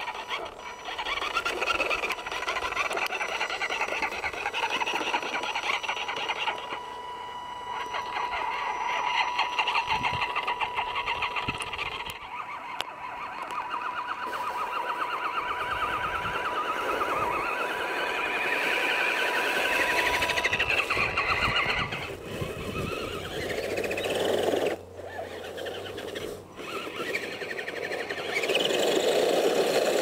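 The 35-turn brushed electric motor and gear drivetrain of a 1/10-scale RC crawler whining, rising and falling in pitch with the throttle, over a steady thin high tone. Near the end a rougher rushing joins in as the tyres churn through snow.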